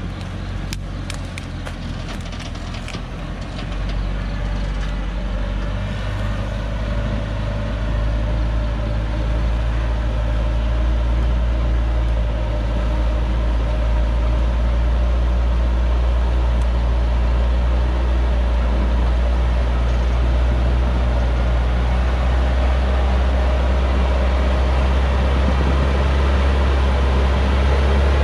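Diesel engine of a Hoa Mai truck loaded with acacia logs, running low and steady as it crawls down a steep dirt hillside track, getting louder as it comes closer. A few sharp clicks near the start.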